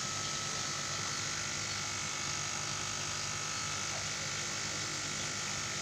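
Koi churning the pond surface as they feed, a steady wash of splashing water, with a thin steady hum underneath.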